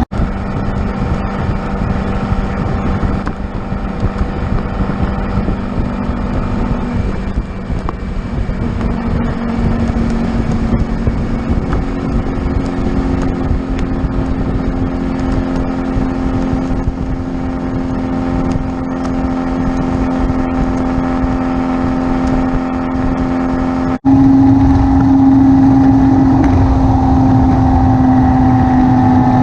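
A car engine running steadily on the road, a continuous drone with road rumble underneath. The sound cuts out for an instant twice, near the start and about 24 seconds in, and after the second break the engine note is a little louder.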